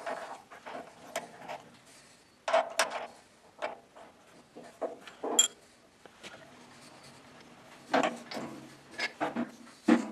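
Irregular short clicks, knocks and brief scraping rubs as hands work a small milling machine's spindle and chuck to touch off a center drill on the part's edge with a feeler gauge, fast-forwarded at four times speed.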